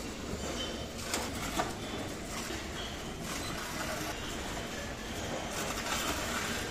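Sielaff reverse vending machine taking in an empty plastic bottle, with a few sharp clicks and knocks about a second in. Near the end comes a brief whirring stretch as it prints the deposit coupon. All of it sits over a steady supermarket background hum.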